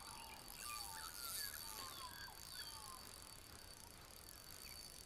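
Australian magpies carolling: a faint warble of flute-like gliding notes that thins out about two and a half seconds in. A steady high-pitched whine runs underneath.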